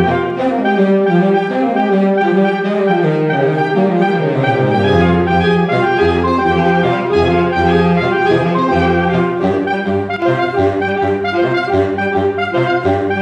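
Saxophone quartet of soprano, alto, tenor and baritone saxophones playing a dense, rhythmic passage of rapidly repeated notes. The low part steps steadily downward in pitch over the first few seconds before settling.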